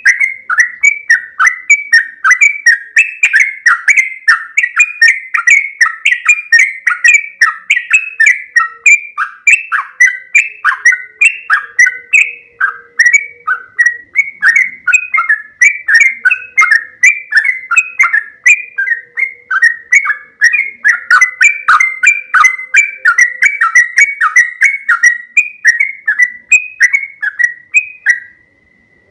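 Yellow-vented bulbul (trucukan) singing a long, loud run of quick, bubbly chattering notes, about three to four a second, which pauses briefly near the end.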